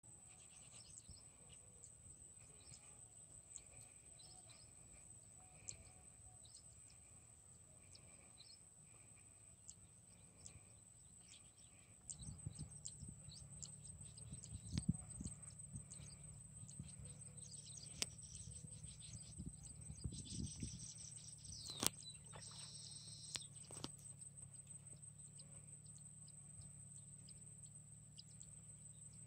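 Quiet outdoor ambience with faint, scattered bird chirps and a thin, steady high-pitched tone. About twelve seconds in, a low rumble comes in, with a few soft knocks and clicks over the following ten seconds.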